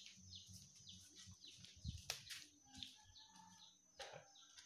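Faint, repeated high cheeping of small birds: short downward chirps, a few a second, over a thin steady high whine. There are a couple of soft knocks, one about four seconds in.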